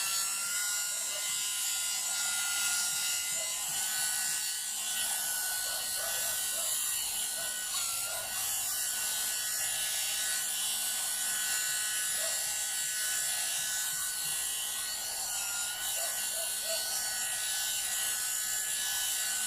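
Hot-air brush hair dryer running steadily on its middle setting: a constant motor whine over the hiss of blowing air.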